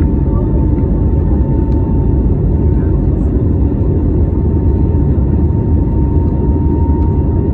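Jet airliner cabin noise in flight, heard inside the cabin beside the wing: a steady, deep roar of the engines and airflow with a faint, high, steady whine over it.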